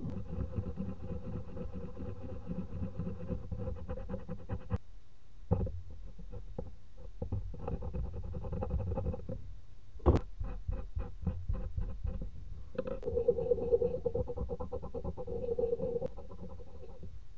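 Hardened old thermal paste being scraped and rubbed off a CPU and a copper heatsink plate with a metal pick and cotton buds, in quick repeated strokes. A steady hum runs under it and cuts in and out abruptly, with one sharp click about halfway through.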